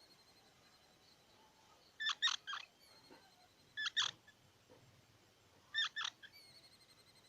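Squirrel giving short, sharp, high chip calls in quick clusters: three in a row, then two pairs about two seconds apart. Faint thin whistled notes trail in between.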